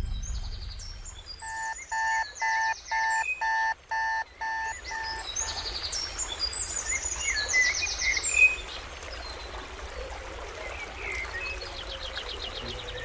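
Birds chirping and trilling in quick high notes. In the first few seconds a run of about eight evenly spaced, steady-pitched notes repeats roughly twice a second, louder than the rest.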